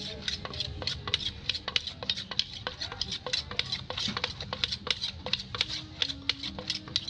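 Wooden pestle pounding som tam (papaya salad) in a clay mortar, with a spoon turning the mix: quick, even knocks, roughly three to four a second.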